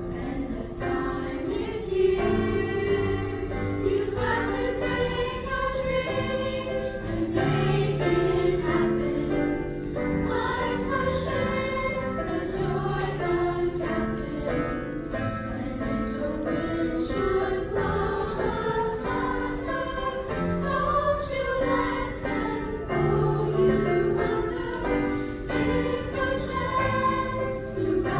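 Junior high school choir, mostly young girls' voices, singing a song together in several parts.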